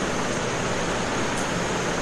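A steady, even hiss that holds at one level throughout, with no distinct events.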